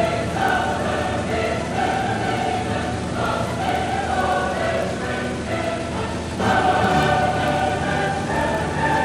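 Choral music, a choir singing held notes. The voices swell louder about six and a half seconds in.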